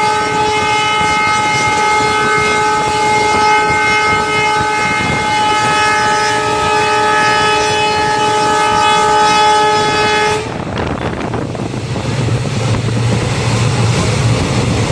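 Train horn held in one long, steady blast over the noise of the moving train; about ten seconds in it cuts off abruptly, leaving the rumble and wind of the train running.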